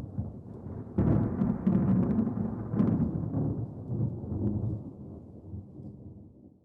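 Thunder: a low rumble that breaks into a loud crackling clap about a second in, then rolls on and slowly fades away.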